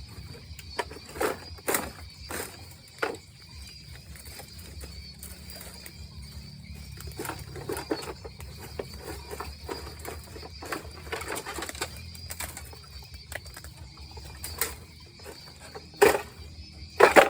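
Blade chopping bamboo in irregular strokes, the two loudest strokes near the end, over a steady high insect drone.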